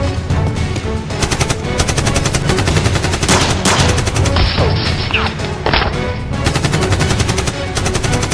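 Bursts of rapid gunfire sound effects, shot after shot in quick runs, over action background music.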